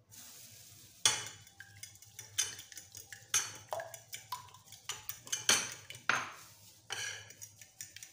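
Fork beating raw eggs in a glass baking dish, clinking and scraping against the glass about twice a second, starting about a second in.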